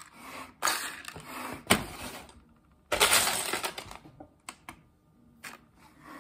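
Loose plastic Lego bricks clattering and rattling in a clear plastic tub as a hand rummages through them. There are irregular bursts, the longest about three seconds in, followed by a few separate clicks of single pieces.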